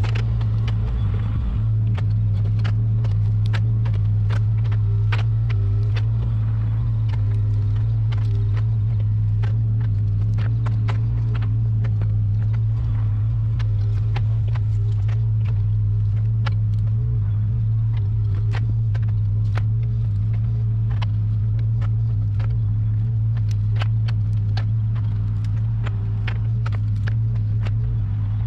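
Caterpillar 305 mini excavator's diesel engine running steadily under load as it rakes brush, a constant low drone, with frequent sharp clicks and snaps of sticks and brush being dragged by the rake.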